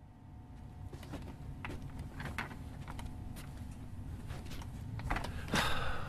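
Low steady rumble of room ambience fading in, with scattered soft clicks and knocks, and a louder rustling scrape about five and a half seconds in.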